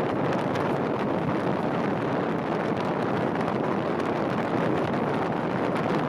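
Steady rushing wind noise on the microphone, with the road noise of a moving vehicle underneath.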